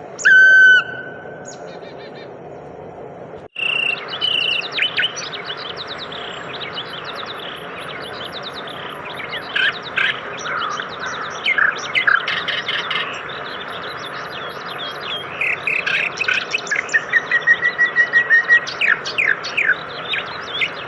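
Songbirds singing and chirping. A loud whistled note comes near the start. After an abrupt cut about three and a half seconds in, there is a busy chorus of quick chirps and trills over a steady background hiss.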